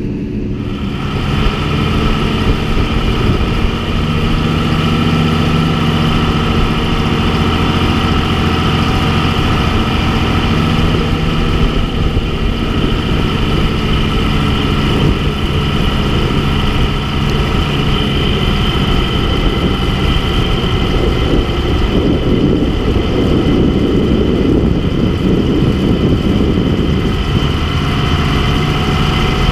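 Tractor engine running steadily while clearing snow.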